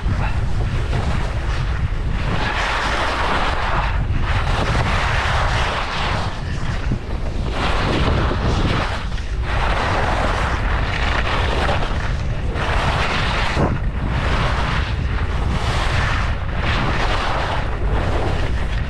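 Skis running fast on packed, groomed snow, the edges scraping in swells about every two seconds as the skier turns, with a steady low rumble of wind buffeting the microphone.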